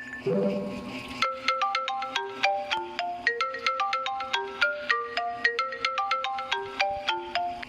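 A Lenovo A318 phone ringtone: a short low flourish, then from about a second in a quick melody of short, bright notes, about four a second.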